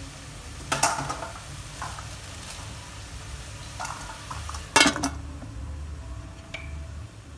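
Whole shrimp sizzling in an aluminium pot, with a sharp clatter of utensil on pot under a second in. The loudest sound is a metal clank just before five seconds in, as the aluminium lid is set on the pot.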